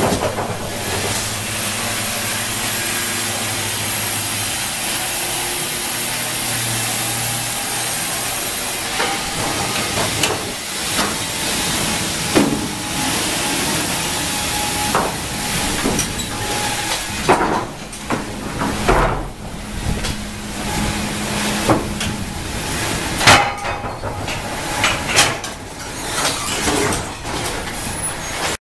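Sawmill band saw line running: a steady machine hum with a high hiss, then, from about nine seconds in, irregular knocks and clatter from the roller conveyors and timber handling.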